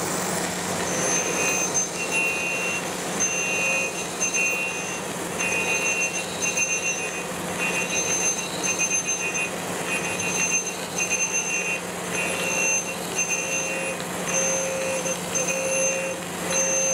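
Reid surface grinder taking a heavy rough cut, about seven thousandths deep, on a metal plate: a steady motor and wheel hum under a hiss of air-and-coolant mist, with a high-pitched grinding ring that breaks off and comes back every second or so as the table carries the work under the wheel and back.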